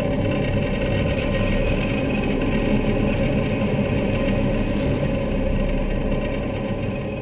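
Dark, rumbling sound-design texture from the Man Makes Noise Puro sample library: a dense low drone with a thin steady high tone above it, beginning to fade near the end.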